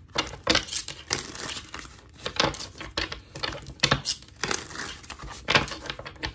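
A deck of cards being hand-shuffled, the cards slapping and riffling against each other in a string of irregular sharp clicks and crackles.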